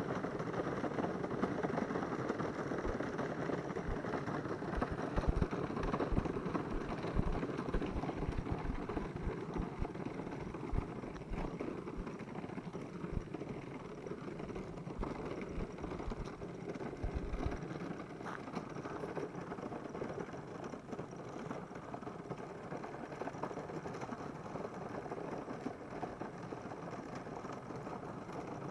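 Wheels of a small wooden dog cart rolling along an asphalt road, a steady rolling noise with many small ticks. Low knocks sound on the microphone through the first half or so.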